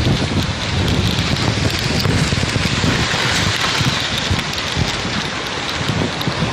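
Sandstorm wind rushing steadily, with low gusts buffeting the microphone.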